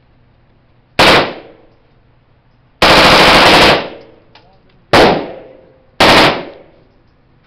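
Gunshots on a shooting range: a sharp shot about a second in, a sustained stretch of firing about a second long around three seconds in, then two more sharp shots near five and six seconds. Each one is loud and leaves a trailing echo.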